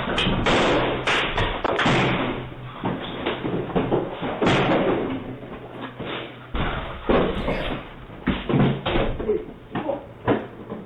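Repeated heavy slams and thuds against a front door as a man forces his way in, coming thick and fast at first, then more spread out, picked up by a doorbell camera's microphone.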